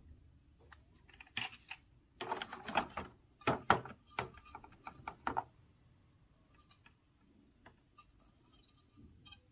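Small hard plastic Sylvanian Families toy pieces clicking and rattling as they are handled, a busy run of clicks in the first half, then only a few faint ticks.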